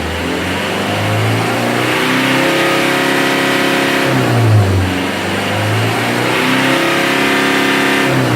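Mitsubishi L300's 4D56 diesel engine revved up twice from idle. Each time the pitch climbs, holds high for a second or so, then drops back, as in a free-rev test for black smoke.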